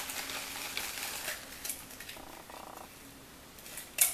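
Bottle of honey barbecue sauce being squeezed and worked over a bowl, the thick, fridge-cold sauce sputtering and squelching out with air through the nozzle in a short buzzy burst, with scattered small clicks and one sharp click near the end.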